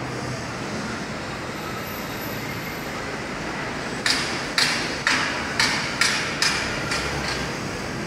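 Hammer blows, about eight sharp strikes roughly two a second starting about halfway through, over the steady hum of city street noise.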